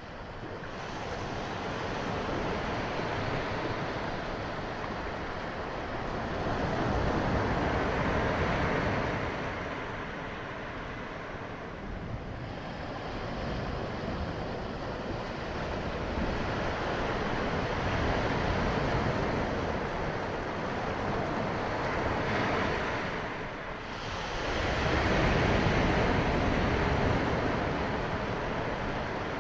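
Small waves breaking and washing up a sandy beach. The surf swells and ebbs in slow surges, loudest about eight seconds in and again a few seconds before the end.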